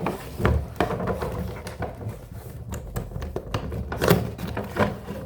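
Cardboard toy box being opened by hand: irregular rustling, scraping and tapping of cardboard and packaging, with louder knocks about half a second and about four seconds in.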